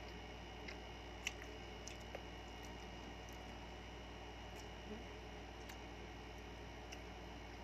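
Quiet eating by hand: fingers squishing into steamed rice and sisig, chewing, and a few faint clicks, over a steady low background hum.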